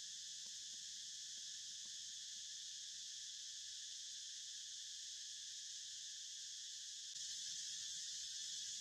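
Steady high-pitched chorus of insects that swells slightly about seven seconds in, with faint soft ticks of dry leaves shifting.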